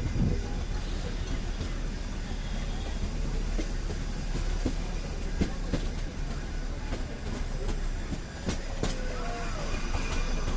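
Nilgiri Mountain Railway toy train running: a steady rumble of the moving carriage with wheel clatter and a few sharp clicks about halfway through.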